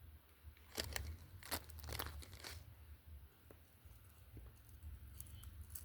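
Packaging being handled during an unboxing, crinkling and tearing in a handful of sharp rustles in the first half, over a steady low hum.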